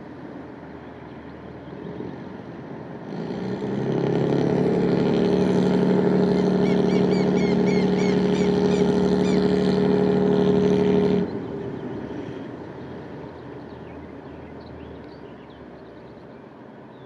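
Car ferry's diesel engine powering up as the ferry comes in to dock: a steady, loud drone with a clear pitch that builds over about a second, holds for about seven seconds, then drops off abruptly as the engine is throttled back.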